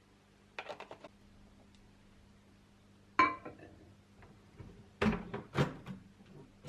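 Kitchenware being handled: a quick rattle of clicks, then a sharp knock with a brief metallic ring, then two heavier knocks near the end.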